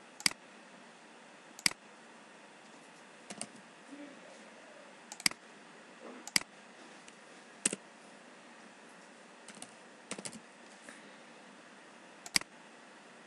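Scattered sharp clicks of a computer mouse and keyboard, about a dozen single clicks a second or more apart, with a quick run of several around ten seconds in, over a faint steady hiss.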